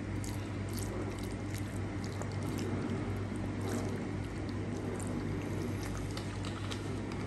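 Vinegar poured in a thin, steady stream into a bowl of chopped onion, ginger, chili and raw fish, trickling and splashing onto the ingredients.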